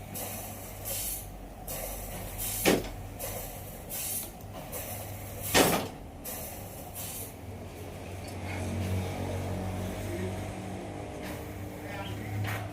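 Sawmill machinery running: a steady low motor hum with a rhythmic hissing about twice a second, broken by two loud sharp knocks, then settling into a steady humming drone.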